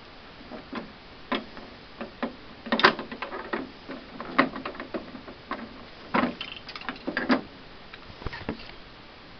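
Irregular clicks and knocks of plastic case parts and a tool being handled while an iMac G3's plastic case is worked loose, the tabs being pressed and the case pushed on.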